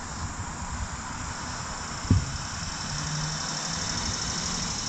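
Steady high-pitched insect chorus over a low rumble, with a single short bump about two seconds in.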